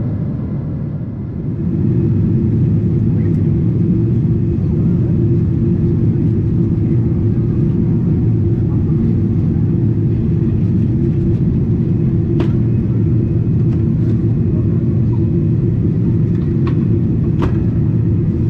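Steady jet cabin noise inside a Boeing 777-300ER: a low rumble of airflow and engines, which steps up in loudness about two seconds in and then holds steady. A few faint clicks come near the end.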